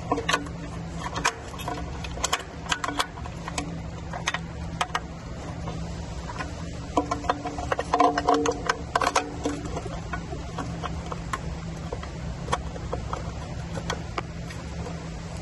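Scattered clicks and taps of hands working plastic wiring connectors and cables under an e-bike's frame, busiest in the first few seconds and again about seven to nine seconds in, over a steady low hum.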